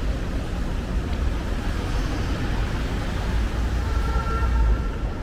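City street ambience: a steady hum of road traffic with a deep low rumble underneath.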